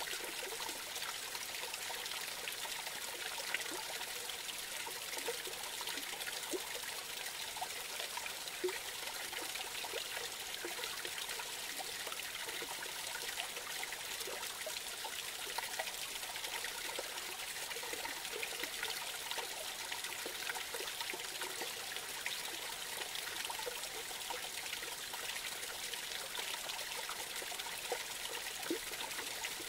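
A small forest creek trickling over a low cascade. The splashing hiss is steady, with scattered small plops and gurgles through it.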